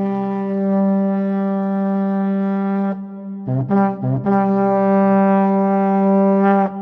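A brass fanfare in two phrases. Each phrase is a few quick short notes leading into a long held note of the same pitch.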